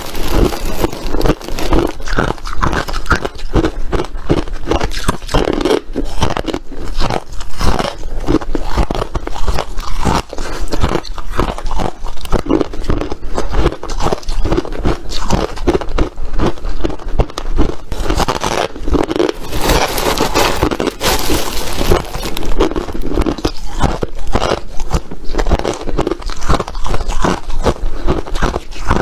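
Crunchy ice being bitten and chewed close to the microphone: a steady run of loud, irregular crunches and crackles with no pause.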